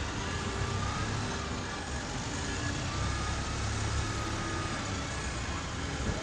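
Buses and road traffic at a transport interchange: a steady low engine rumble under a continuous urban din, with faint short tones sounding on and off above it.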